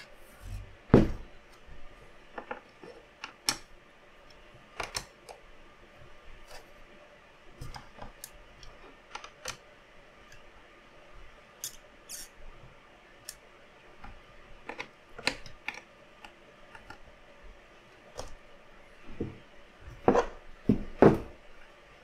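Scattered clicks, taps and knocks of parts and tools being handled while assembling an open-bench PC case, with a louder knock about a second in and a few louder knocks near the end.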